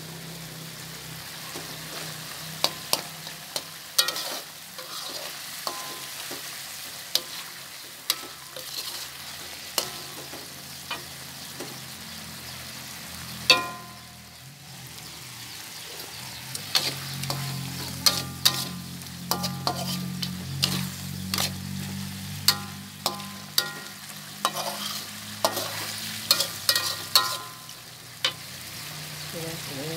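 Metal spatula stirring chicken in a thick sauce in an aluminium wok: repeated sharp scrapes and clanks of metal on the pan, some ringing briefly, over a steady sizzle, with the clanks coming thick and fast in the second half.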